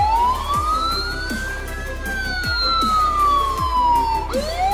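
Huina 1562 RC fire truck's built-in sound module playing a siren wail: one slow rise and fall in pitch, then a second rise starting near the end. Electronic background music with a steady beat plays underneath.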